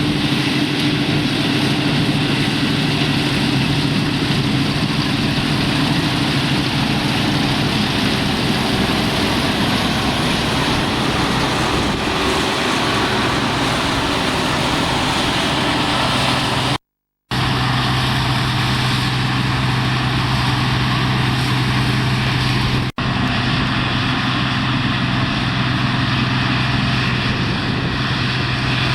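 Older combine harvester working in the field: engine and threshing gear running steadily with a dense, loud mechanical noise. The sound cuts out completely for a moment about halfway through.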